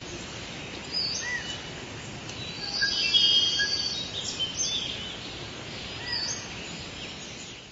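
Tropical forest ambience: a steady hiss with several birds calling over it. One whistled call comes about a second in and again about six seconds in, with a busier run of high calls around three to four seconds.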